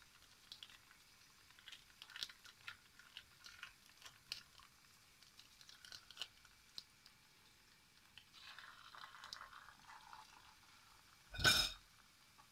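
Churro dough frying in a small saucepan of hot oil: faint, scattered crackling pops, with a stretch of steadier sizzling from about eight to ten seconds in. A short, loud knock near the end is the loudest sound.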